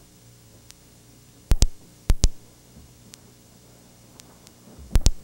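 Three quick double smacks, each a pair of sharp strikes in fast succession: one about one and a half seconds in, another just after two seconds, and a third near the end.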